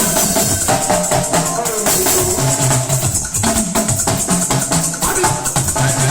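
Church praise music with drums, a moving bass line and shakers rattling steadily on the beat.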